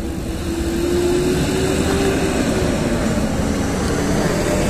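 Steady low rumble of distant engine noise, with a faint wavering hum above it.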